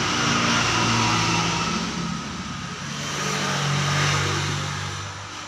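A motor vehicle's engine running close by and revving, swelling in loudness twice before fading near the end.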